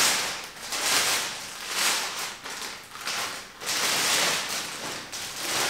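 Clear plastic bag crinkling as it is pulled and peeled off a telescope mount, in a series of rustling swells roughly once a second.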